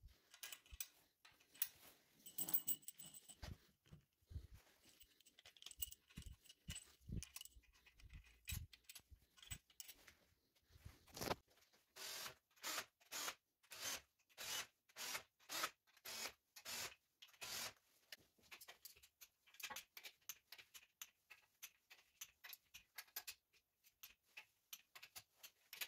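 Ratchet wrench clicking as the lower engine block bolts are run down to 25 Nm: scattered light clicks and metal taps, then a steady run of ratcheting strokes about two a second for several seconds in the middle, then quicker small clicks near the end.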